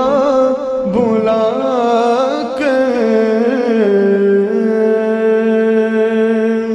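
A man singing a naat, a drawn-out, ornamented vocal line that wavers up and down and settles about four seconds in into one long held note.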